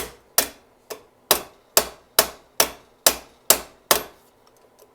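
Hammer tapping on a punch set against the end of a carburetor's throttle butterfly shaft. There are about ten sharp, evenly paced strikes, roughly two and a half a second, which stop about four seconds in. The tapping is meant to free the binding throttle butterflies.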